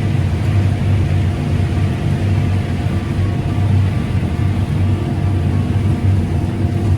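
Combine harvester running steadily while harvesting corn: a constant low engine and machinery drone with a steady hum.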